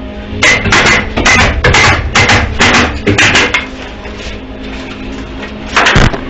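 Hammer driving nails into framing lumber: a quick run of blows, about three a second, for some three seconds, then one more blow near the end.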